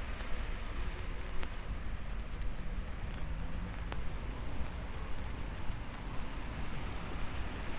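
Rain falling on an umbrella with the microphone mounted on it: a steady hiss broken by a few sharper drop ticks, over a steady low rumble.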